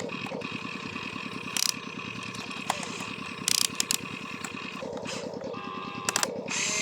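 Small electric gear motor of a toy RC construction vehicle running with a fast, even rattling buzz. Sharp clicks come about one and a half seconds in, a cluster around three and a half seconds, and another pair near the end.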